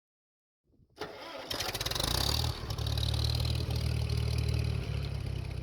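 An engine starts about a second in and then runs steadily.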